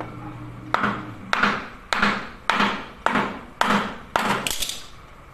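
A metal tool strikes the end of a wooden timber braced against a diesel engine block, about eight sharp blows at roughly two a second.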